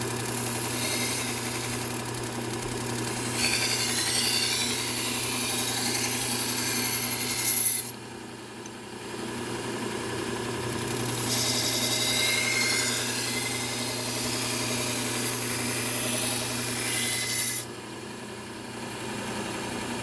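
Kitchen knife edge ground on a Bucktool low-speed belt sander fitted with a Trizact A30 belt, refining the edge. The sander's motor hums steadily while the blade makes two long passes of hissing abrasion, each cutting off suddenly.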